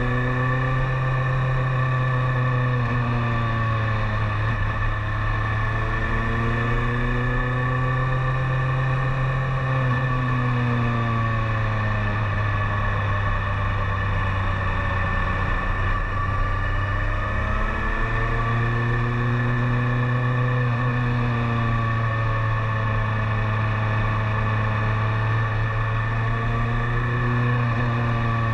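BMW K1300S inline-four motorcycle engine pulling along at road speed, its pitch rising and falling several times as the rider opens and closes the throttle through the bends, over a steady rush of riding noise.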